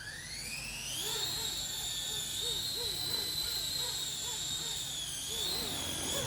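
A 3D-printed RC helicopter's brushless main rotor motor spools up with a rising whine over the first second, then holds a steady high whine. Underneath it a soft pulsing beats about three times a second.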